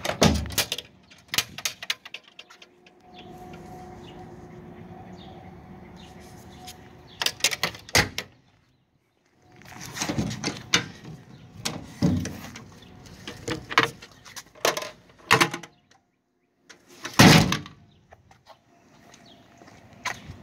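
Irregular sharp knocks and clicks, some in quick clusters, with a faint steady hum for a few seconds early on. The sound cuts out completely twice, for about a second each time.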